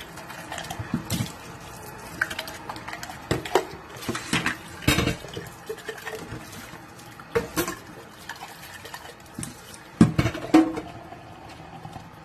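Kitchen tap running into a stainless steel sink while plastic sippy cups and bottles are washed and rinsed, with irregular knocks and clatter as they hit each other and the sink.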